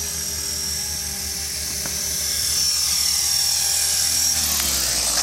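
Blade 450 3D electric RC helicopter flying: high-pitched whine of the brushless motor and head speed over a pulsing rotor chop. About four and a half seconds in the pitch starts to drop as it spools down, and a few sharp clicks follow near the end.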